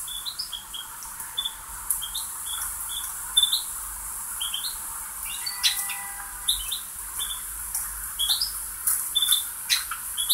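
Diced potatoes and onion sizzling in oil in a hot wok, with a steady high hiss, frequent small crackles and pops, and many short high chirps running throughout.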